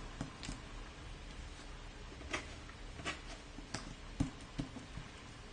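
Cardboard jigsaw puzzle pieces being handled and pressed into place on a tabletop: a handful of faint, irregular clicks and taps.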